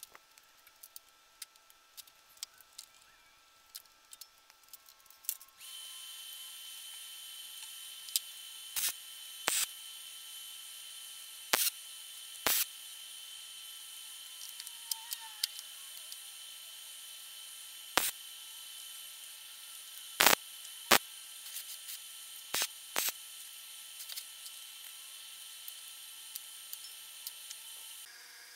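Short, loud welding tacks, about nine, several in pairs, joining a square steel-tube frame. A steady high hiss with a faint whine starts about five seconds in and stops near the end.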